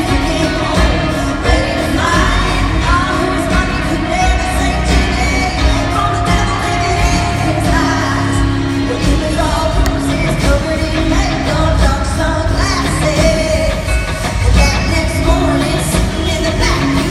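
A live country-pop band playing, with a woman singing the lead vocal over steady drums.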